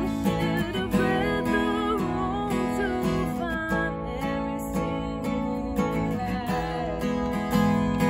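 Black Takamine steel-string acoustic guitar strummed in steady chords, with a woman's voice singing a melody over it, clearest in the first half.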